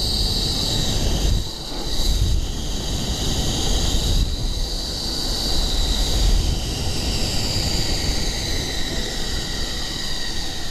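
Snow tube sliding fast down a groomed tubing lane: a steady, rough rumble as it runs over the ridged corduroy snow, dipping briefly about a second and a half in.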